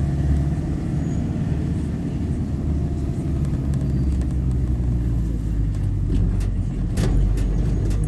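Interior noise of a car driven slowly down a street: a steady low engine hum and tyre rumble heard from inside the cabin. A couple of sharp knocks come near the end.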